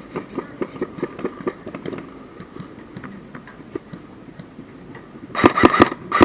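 Light rapid ticking, then about five seconds in a loud burst of fast, evenly spaced clicks, typical of an airsoft electric gun firing on full auto.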